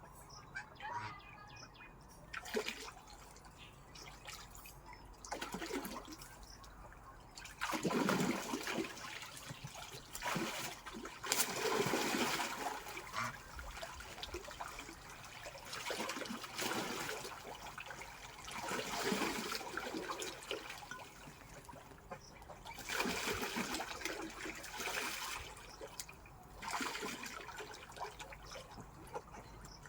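Water splashing and trickling in irregular bursts every one to three seconds, quieter for the first several seconds, as swans splash about in the water.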